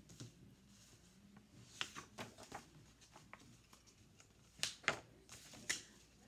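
Quiet handling noises: a scatter of soft clicks, taps and rustles as a picture book is put down and a cardboard cutout is picked up, the strongest clusters about two seconds in and about three-quarters of the way through.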